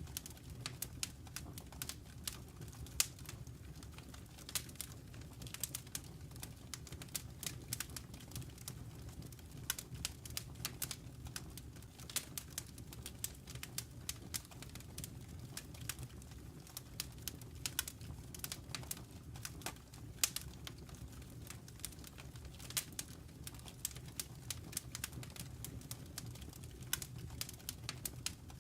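Wood fire crackling in a fireplace: irregular sharp snaps and pops, several a second, over a low steady rumble, with a few louder pops standing out.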